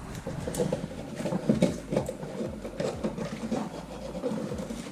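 Irregular rubbing, scraping and small clicks: the old GFCI outlet and its solid wires being handled and worked out of the wall box.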